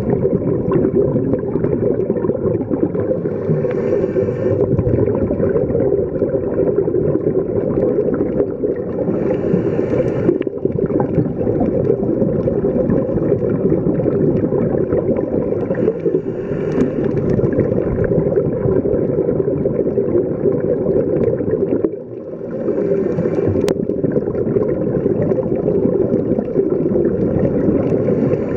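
Muffled underwater noise heard through a diving camera's housing, with a scuba diver's regulator exhalations bubbling in about every six seconds.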